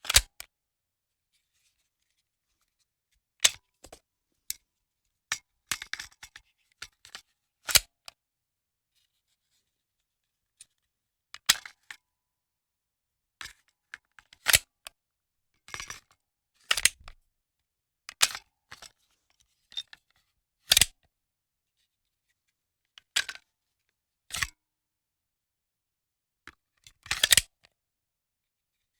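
Handgun magazine loading and handling: a series of separate sharp metallic clicks and clacks a second or two apart, some in quick clusters of two or three, with dead silence between them.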